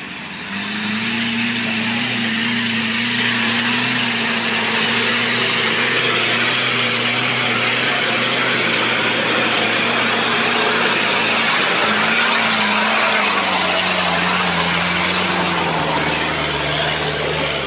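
Off-road 4x4's engine held at high revs under load as it climbs a loose-rock slope, a steady drone that drops to a lower pitch about twelve seconds in as the revs ease.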